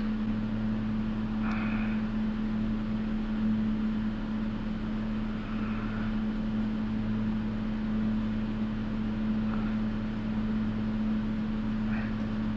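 Steady hum and whir of a room heater running, with a low two-note drone and no change in pitch.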